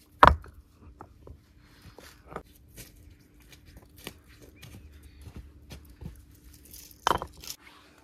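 Objects being handled: a sharp knock just after the start and another near the end, with scattered light clicks and clinks in between, over a faint steady hum.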